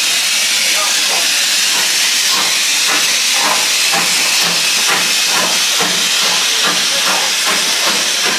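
Steam locomotive venting steam in a loud, steady hiss, with people's voices faint behind it.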